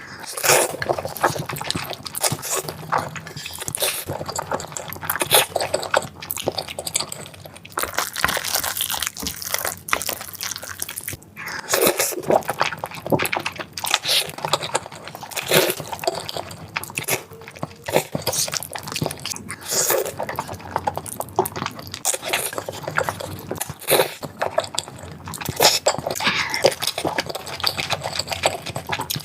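Close-miked eating sounds: irregular chewing, biting and wet mouth clicks going on without a break, apart from a short pause about eleven seconds in.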